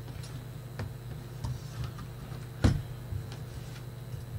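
Scattered clicks and knocks of a laptop motherboard being handled and turned over on a workbench, with one louder knock about two-thirds of the way in, over a steady low hum.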